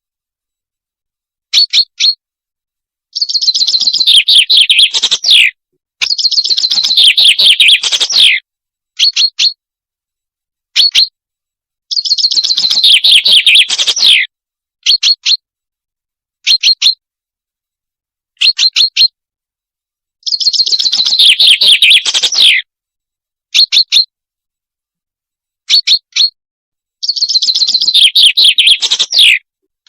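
Recorded song of the small bird that hunters call the salanj, played as a lure call: short sharp call notes, singly or in pairs, alternate with about five longer, rapid trilled song phrases, each falling in pitch at its end, separated by silence.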